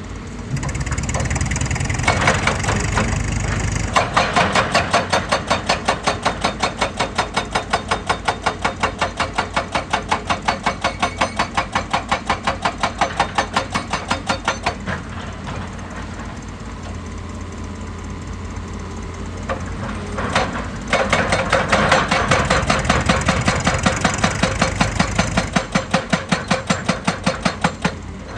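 Heavy machinery hammering rock in two long bouts of rapid, even blows, about five a second, over a diesel engine running, which drops back between bouts.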